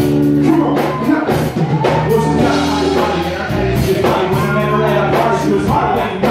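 Live band playing: a man singing into a microphone over electric guitar, bass and drums, with a steady drum beat.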